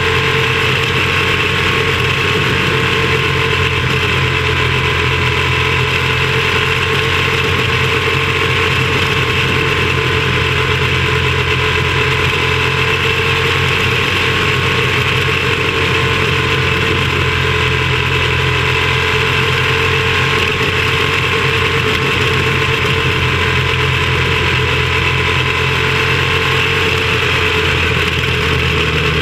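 Small open-cockpit race car's engine running hard and steady, recorded onboard close to the engine, its pitch holding nearly constant with only slight rises and dips.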